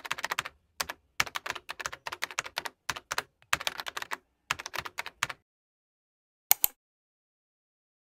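Mechanical pencil sketching on sketchbook paper: quick, short scratching strokes in rapid runs, stopping about five seconds in, with one last brief pair of strokes a second later.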